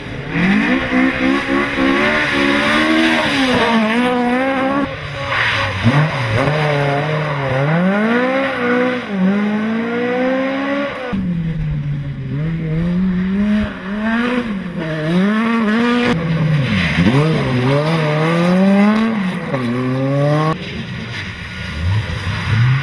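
Historic rally cars driven hard one after another, among them a Ford Escort, a Renault 5 Turbo and an Audi Quattro. Their engines rev high, with the pitch climbing and dropping again and again through the gear changes. The sound changes abruptly from one car to the next several times.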